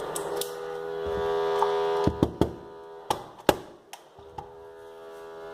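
An airsoft gun that will not fire because a pellet is jammed in its feed: a steady hum with several sharp clicks and knocks, a cluster of them around the middle.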